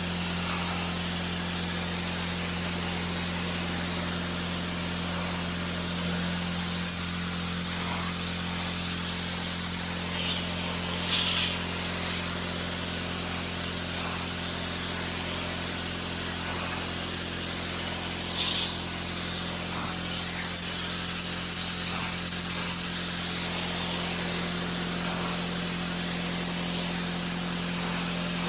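Pressure washer running steadily with a constant low hum while its water jet hisses against a wall. The spray briefly grows louder twice, about a third and two-thirds of the way through.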